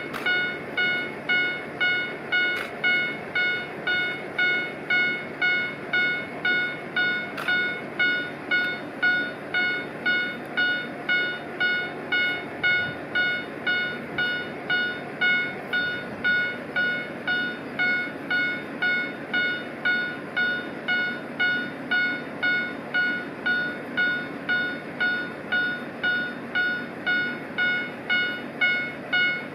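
Japanese railway level-crossing warning bell ringing: an electronic ding repeating steadily about one and a half times a second, starting suddenly, which signals a train approaching or departing. A low rumble runs underneath.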